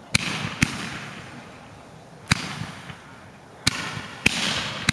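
Small consumer fireworks launching shots one after another: about six sharp reports at uneven intervals, each followed by a short fading hiss as the red comet star climbs.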